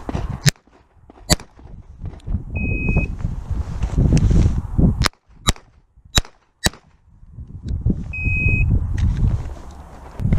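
Ruger Mark III 22/45 .22LR pistol shots: about six sharp cracks, a single and then two close pairs, with two short electronic beeps between them. A low rumble runs under the shots.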